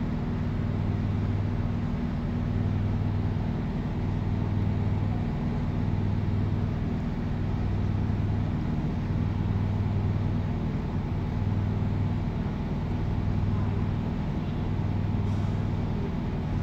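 Steady low motor hum with a slow, even throb about every second and a half.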